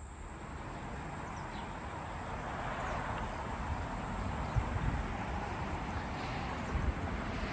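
Steady high-pitched insect trill, crickets or cicadas, over a broad, even rushing noise that swells slightly in the first second or two.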